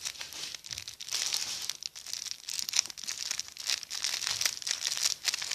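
Crinkling and crackling handling noise as a soft, slow-rising squishy toy is squeezed and turned in the hands, a dense run of fine crackles.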